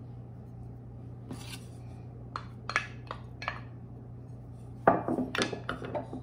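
Glass clinking and tapping as corn kernels are tipped and knocked out of a small glass bowl into a glass dish of cooked rice: a brief scrape, then four separate light clicks, then a quick cluster of louder clinks and knocks near the end.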